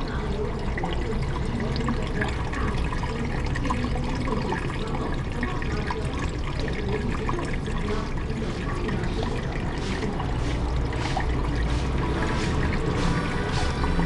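Aquarium water trickling and splashing steadily where the filter's outflow churns the surface, with sharper little splashes in the last few seconds.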